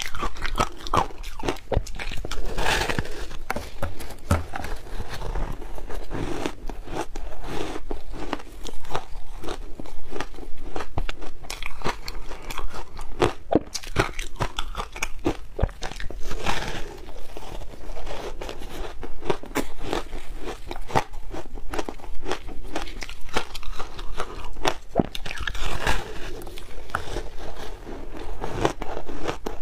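A person biting and chewing a frozen block of matcha and milk-powder shaved ice: a dense, continuous run of sharp crunches and cracks, with a few louder bites now and then.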